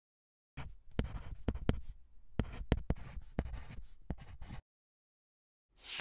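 Pen writing on paper: scratchy strokes with small sharp taps for about four seconds, then a short second burst of writing near the end.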